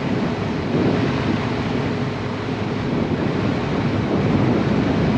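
Fishing charter boat's engine running steadily, with water washing along the hull and wind on the microphone.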